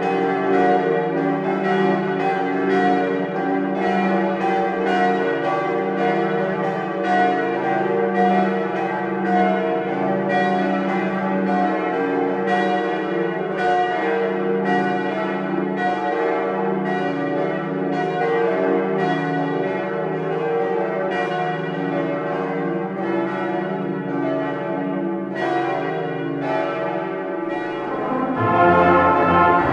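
Church bells pealing: several bells struck over and over, their tones ringing on and overlapping. Near the end a brass choir starts to play.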